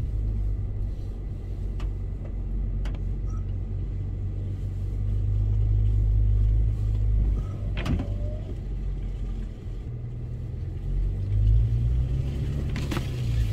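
Off-road 4x4's engine running at low revs, its note swelling and easing a couple of times as it works along a muddy track, with a few single sharp knocks.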